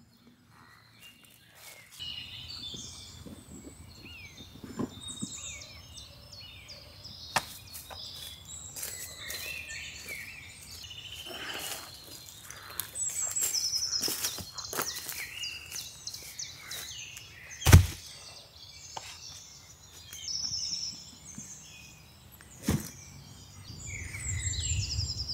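Wild birds singing and chirping in woodland, with scattered knocks and clicks of handling and one loud thump about 18 seconds in.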